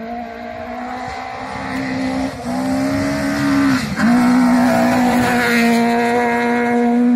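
Rally car engine held at high revs on a gravel stage, getting louder as the car approaches and passes, with tyre and gravel noise underneath. There is a short dip in revs about four seconds in, then it holds high again and is loudest in the second half.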